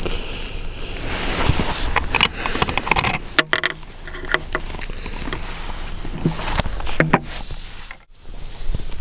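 Strong wind buffeting the microphone, with scattered sharp metallic clicks and rattles from handling an Orsis 120 bolt-action rifle between shots.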